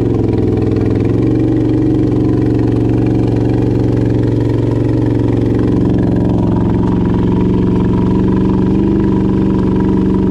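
ATV engine running steadily, close to the microphone, its pitch shifting only slightly.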